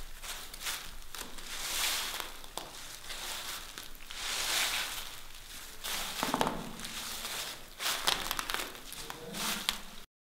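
Footsteps crunching and rustling through dry fallen leaves, a few slow steps with crackling in between. The sound cuts off suddenly shortly before the end.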